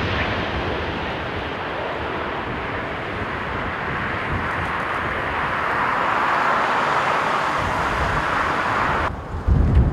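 Jet engines of an American Airlines Boeing 777-200ER (Rolls-Royce Trent 800 series) running as the airliner touches down and rolls out on the runway: a steady roar that grows louder in the second half. Near the end it cuts off suddenly, giving way to wind buffeting the microphone.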